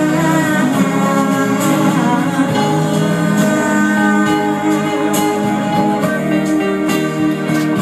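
Live band playing a song: guitar with women singing lead and backing vocals over it.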